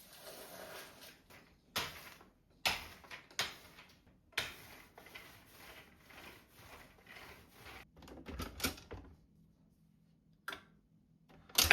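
A few separate sharp clacks and knocks with rustling between them, like a keyboard and its packaging being handled on a desk, with a couple of duller thuds past the middle.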